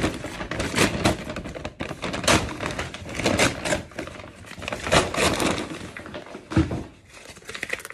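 A shopping bag being torn, crumpled and pushed into gaps in brickwork: uneven crinkling and rustling with short knocks.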